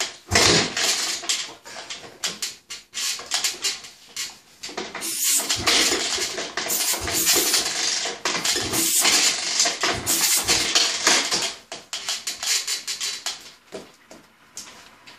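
Honda CR500 single-cylinder two-stroke engine on a 38 mm billet Smartcarb firing in a ragged, irregular string of pops and cracks, sputtering for about twelve seconds before dying out near the end. It fires but will not stay running, which the owner suspects comes from a too-weak throttle valve spring letting the carb bypass the choke circuit.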